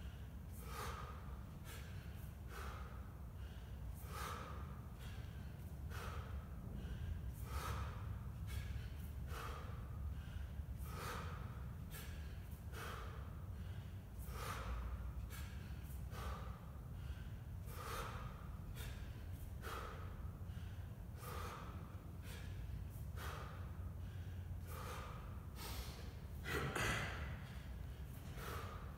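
A man breathing hard in short, forceful breaths while doing one-arm 24 kg kettlebell snatches, about one breath a second in rhythm with the reps, with one louder breath near the end.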